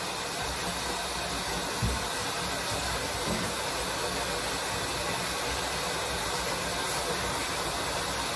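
Steady rush of water running in a bathtub, with one light knock about two seconds in.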